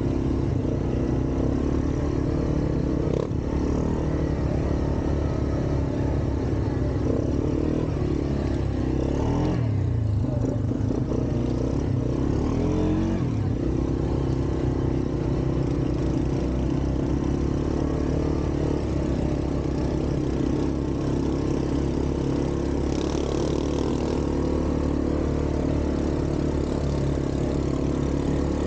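ATV engine running steadily while riding. About ten seconds in, its speed drops, then climbs back up over the next few seconds before settling again.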